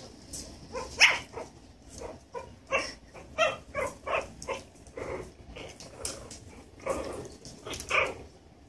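Three-week-old Havachon puppies yipping and squeaking in about a dozen short calls, the loudest about a second in and near the end.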